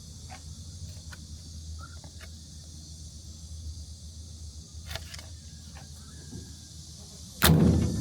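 Yuchai YC4A140L-D25 diesel generator running inside its soundproof canopy: a steady low hum with a few light clicks. A single loud thump comes near the end.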